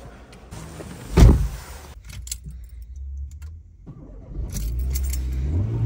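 Renault Clio's engine being started: a sudden loud catch about a second in, then the engine running with a low steady hum that rises and falls slightly in pitch near the end.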